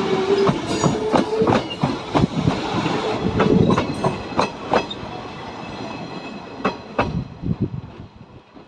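Electric passenger train running past, its wheels clacking over the rail joints in an uneven string of sharp clicks that grows fainter near the end as the train moves away. A steady tone is heard until about a second and a half in.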